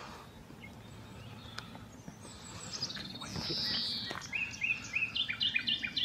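Common nightingale singing: faint at first, then a phrase of whistles and a harsh rasp about halfway through, followed by fast runs of short repeated notes, about three a second, shifting higher near the end.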